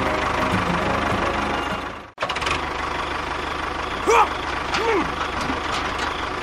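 An engine running steadily with a fast knocking beat, cut off abruptly for an instant about two seconds in and then running on.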